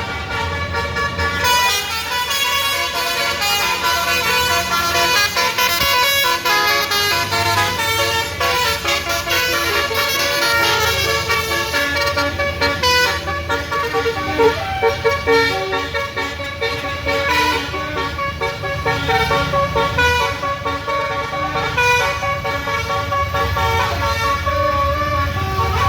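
Bus telolet horns, multi-note musical air horns, playing tooting tunes one after another without a break. A low engine rumble runs underneath.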